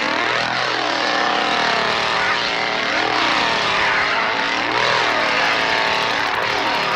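A small engine revving up and down again and again, its pitch rising and falling every second or two.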